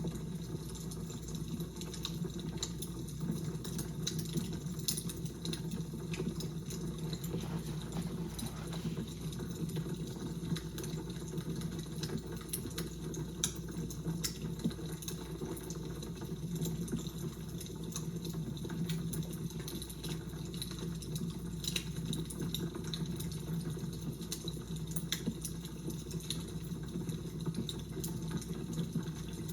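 Wood fire crackling: a steady low rumble with frequent irregular pops and snaps.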